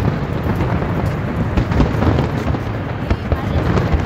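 Aerial fireworks display: many shells bursting in quick succession, a continuous low rumble of booms with rapid crackling over it.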